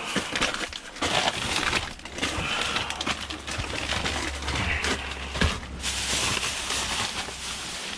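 Rustling and crinkling of packaged snack food and cardboard being handled and packed, with scattered small knocks.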